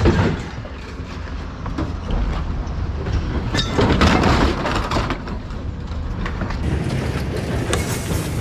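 Heavy scrap washing machine being shoved and dragged over scrap metal, scraping and clanking, loudest about two to five seconds in, over a steady low engine rumble.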